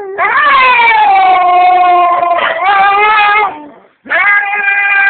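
Husky howling and 'talking' in three long, drawn-out calls: the first rises, then slides slowly down in pitch, the second is shorter, and the third begins about four seconds in.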